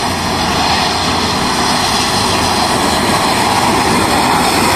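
Coach bus approaching on a wet road: engine running and a steady hiss of tyres on wet asphalt, growing slightly louder as it nears.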